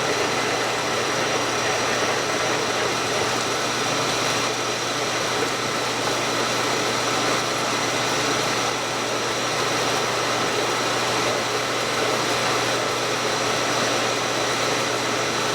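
Milling machine running slowed down, a hole saw cutting steadily through a stack of four 3/8-inch plates. A constant hum with a few steady tones throughout.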